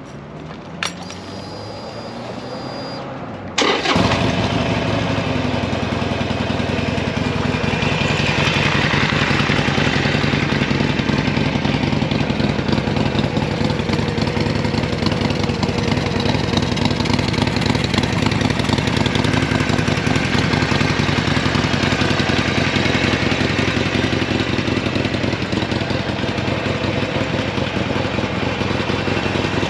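Harley-Davidson Sportster Forty Eight's air-cooled 1200 cc V-twin being started: a click about a second in, then the engine catches about three and a half seconds in and settles into a steady idle.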